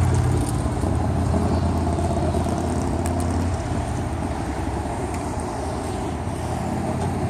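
Steady engine and road noise of a car on the move.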